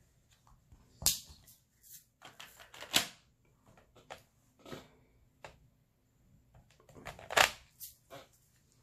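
Scattered clicks, taps and rustles from hands working a diamond painting: handling the canvas, tweezers and plastic drill containers. The sharpest clicks come about three seconds in and again around seven.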